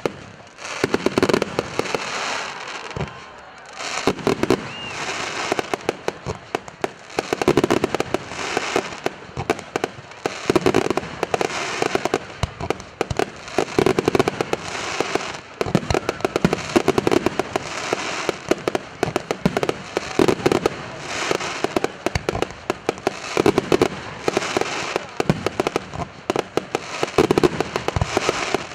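Aerial fireworks shells bursting in a continuous barrage: loud bangs every second or two over dense crackling, with a brief lull about three seconds in.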